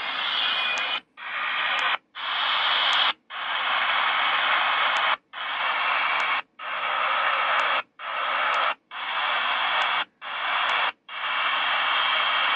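HanRongDa HRD-747 shortwave receiver giving a steady static hiss with faint tones on empty channels, muting briefly nine times as memory presets are stepped through one after another.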